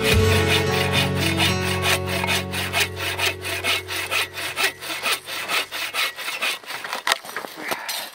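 Hand bow saw cutting through a firewood log, a rasping back-and-forth at about two to three strokes a second.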